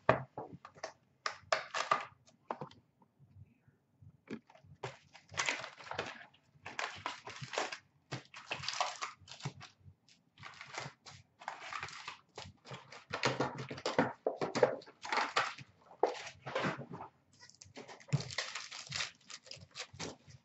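Cardboard card box flaps and foil-wrapped trading card packs crinkling and rustling in irregular bursts as hands open the box and pull out and handle the packs.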